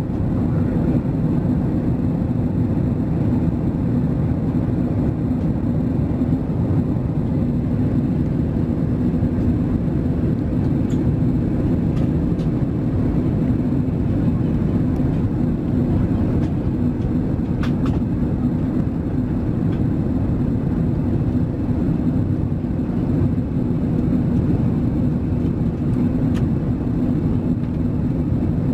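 Steady cabin roar inside an Airbus A380 in flight, heard from a window seat over the wing. It is the even rush of airflow and the Rolls-Royce Trent 900 engines, deep and unchanging.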